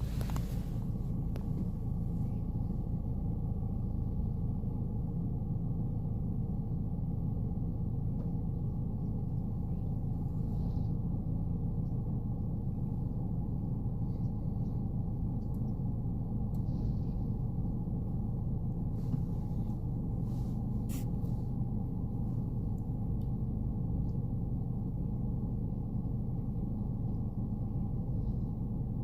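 Steady low rumble with an even hum, like an engine running, with a few faint high bird chirps and a couple of sharp clicks about twenty seconds in.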